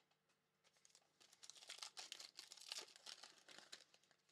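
Faint crinkling and tearing of a trading-card pack wrapper being ripped open and the cards pulled out, in irregular rustles starting about a second in.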